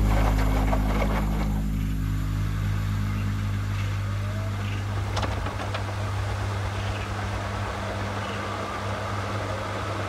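Front-loading washing machine running through a wash cycle, with a steady low motor hum and the rumble of the drum turning with water. It eases off slightly over the first few seconds.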